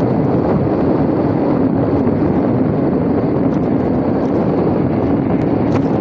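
Steady wind buffeting the microphone on a moving electric bike, with the hiss of tyres on wet pavement.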